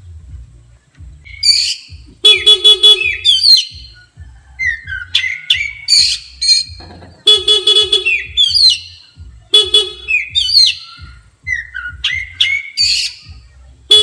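Oriental magpie-robin (kacer) singing loudly in fast chirps and swooping whistled phrases, in an agitated, fired-up mood set off by a horn. About four short buzzy horn-like toots break in among the phrases.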